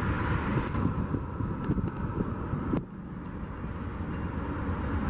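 Steady rumble of vehicles, dropping suddenly a little under three seconds in.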